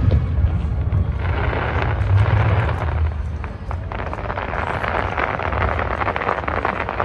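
Aerial fireworks bursting: dense crackling from about a second in, over a steady low rumble of booms.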